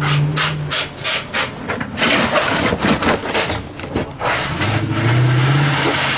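A car engine blipped hard in quick repeated revs, about four a second, then revving more roughly and settling into a steady engine hum near the end.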